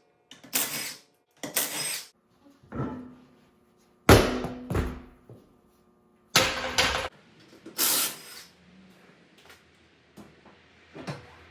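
A series of about six loud bangs and clatters from hands-on work on a stripped-down car, the loudest about four seconds in, followed by quieter scattered knocks.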